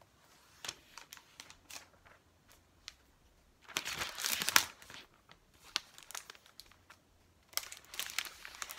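Thin white protective wrapping sheet crinkling as it is pulled off a new MacBook Air, in two rustling bursts, about four seconds in and again near the end, with scattered small clicks and taps between.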